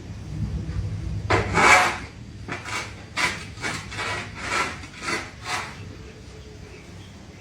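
Rasping back-and-forth strokes of a hand tool, like filing or sawing: one long stroke, then seven shorter ones at about two a second.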